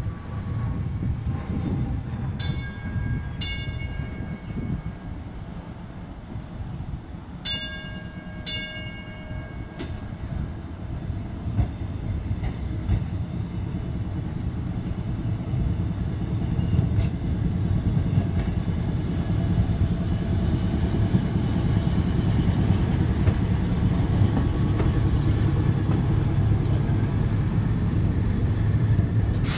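A Red Arrow streetcar's gong rings twice, then twice more a few seconds later. The trolley's motors and wheels then run on the rails, growing steadily louder as the car pulls out and comes near.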